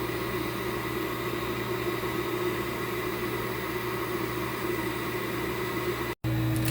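Steady low machine hum with a few fixed tones, like a running appliance or fan. It cuts out abruptly for an instant about six seconds in, then resumes slightly changed.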